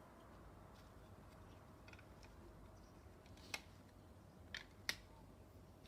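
Lego bricks being pressed together in a quiet room: a few faint plastic ticks, then three sharper clicks a little past halfway.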